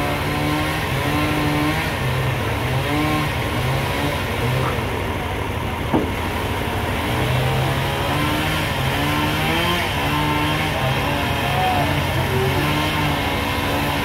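Forklift engine running steadily with a rapid low throb as the machine carries a heavy log, with a steady whine that comes and goes in short stretches over it. A single sharp knock about six seconds in.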